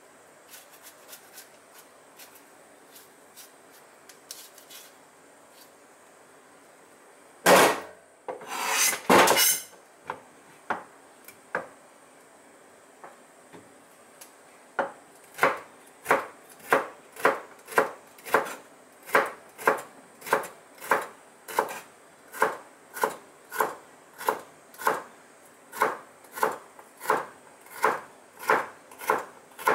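Kitchen knife slicing bitter melon (goya) on a cutting board: a steady run of crisp chops, about one and a half a second, starting about halfway through. Before that, faint scraping clicks as the seeds are scooped out, and a brief louder clatter about a quarter of the way in.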